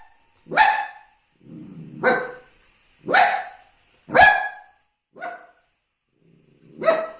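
Puppy barking: six short barks about a second apart, the fifth one fainter. Two of the barks are led in by a brief low rumble.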